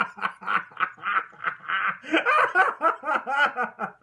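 A man laughing hard and helplessly: an unbroken run of loud laughs, about three or four a second.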